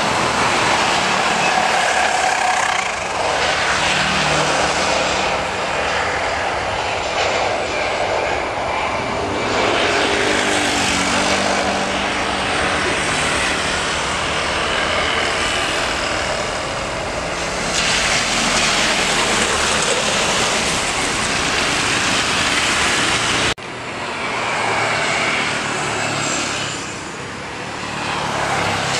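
Jet airliner engines during an Airbus A320-family landing and rollout: a steady rushing noise with a low hum. It breaks off abruptly about 23 seconds in, and a Boeing 737's engines follow on final approach.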